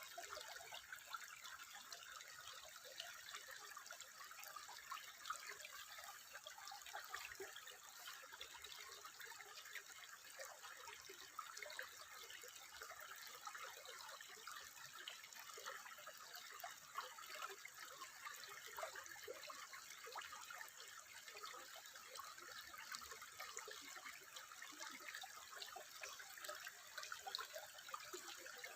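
Faint, steady trickling water, a dense patter of small drips and splashes with no single large splash.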